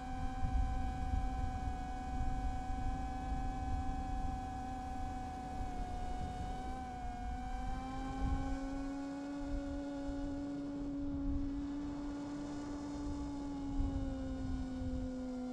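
Brushless motors and propellers of an iFlight Chimera 7 long-range FPV quadcopter whining steadily in flight. The pitch drifts up about halfway through and eases back down near the end, over a low rumble of wind on the onboard microphone.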